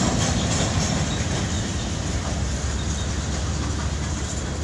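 A string of high-sided freight cars on a CSX trash train rolling steadily past: a continuous low rumble of steel wheels on rail, with faint clicking over the rail joints.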